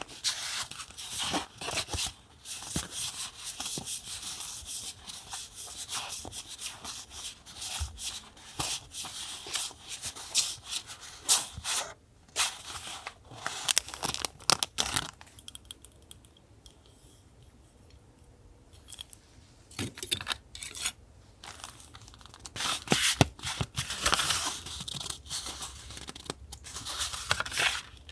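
Close-up paper handling for a collage: paper crinkling and being torn, with a quieter pause about halfway through.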